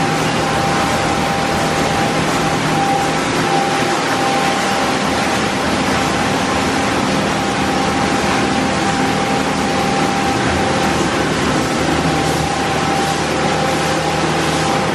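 Automatic car wash running: spinning multicolored wraparound brushes with long strips slap against a car amid water spray, a steady wash of noise with a faint steady machine whine underneath.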